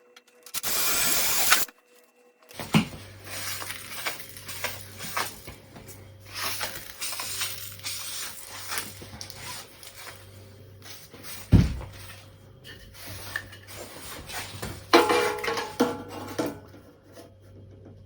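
A power drill runs briefly near the start, drilling pilot holes in the control panel's back plate. After that come scattered small clicks and knocks of tools and parts being handled, with a sharp knock about two-thirds of the way through and a louder clatter soon after, over a steady low hum.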